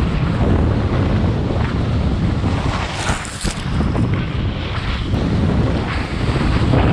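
Wind buffeting the microphone of a camera worn by a skier going downhill, with skis hissing and scraping over packed snow. A brief sharper scrape comes about three seconds in.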